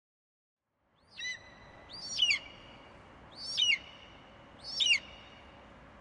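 Bald eagle calling: a faint first note about a second in, then three high, piping calls about a second and a half apart, over a faint steady hiss.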